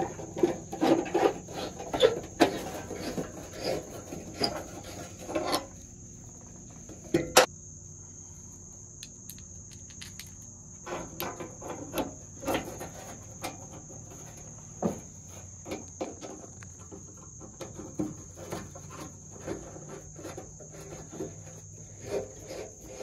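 Screwdriver and steel burner parts of a Coleman propane camp stove clicking and scraping against the stove's sheet-metal top as the burners are refitted. The clicks come thick for the first several seconds, then there is one sharp clack, a short lull, and more scattered clicking. A steady high insect drone runs underneath.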